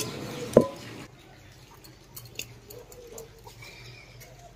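A metal spatula scraping and knocking against an aluminium kadai, with one sharp ringing clang about half a second in. After that come faint handling clicks and knocks as the pan is lifted off the stove and tipped.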